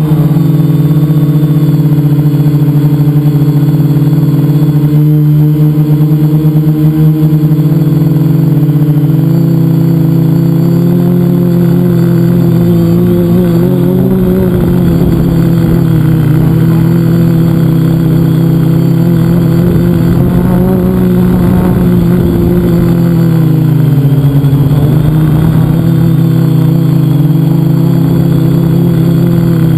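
Quadcopter's brushless motors and propellers running, heard from a camera mounted on the frame: a loud, steady buzz whose pitch wavers a little now and then.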